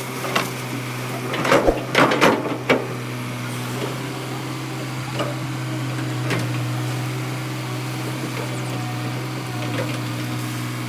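Tata Hitachi EX200 excavator's diesel engine running steadily with a low hum, with a quick run of metallic knocks and clanks about two seconds in and a few single knocks later.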